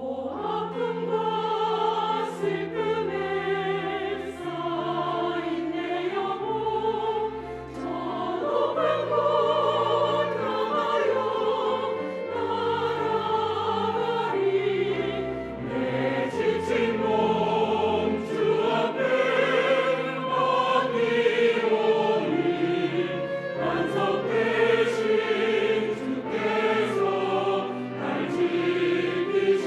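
Church choir singing a hymn anthem in Korean, accompanied by organ, whose held low notes change every second or two under the voices.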